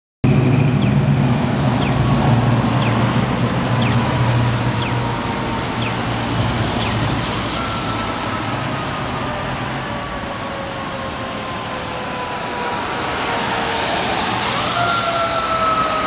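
Fire truck's mechanical siren slowly winding down in pitch, then spun up sharply near the end and coasting down again as the apparatus approaches, over a low engine rumble from idling traffic.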